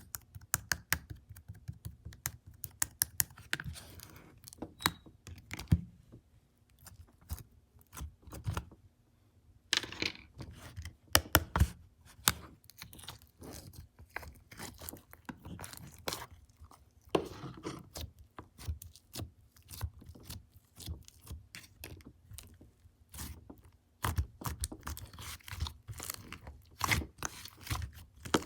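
Black slime being squished and pressed by hand, giving off irregular runs of small sticky clicks and crackles with brief pauses between.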